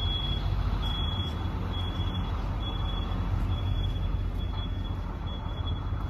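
Vehicle reversing alarm beeping about once a second, high-pitched, over a steady low engine rumble.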